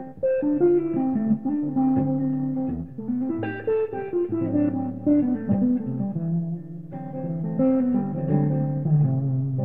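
Electric guitar played solo: a melody of picked single notes and chord shapes, with several notes left ringing over one another.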